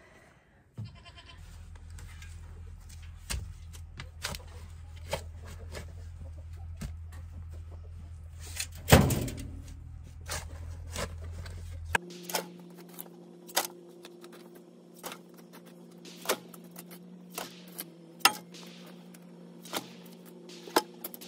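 Shovelling loose compost into a wheelbarrow: scattered light scrapes and knocks of the shovel. About nine seconds in, a single goat bleat with a falling pitch is the loudest sound. From about twelve seconds a steady low hum runs under regular light clicks.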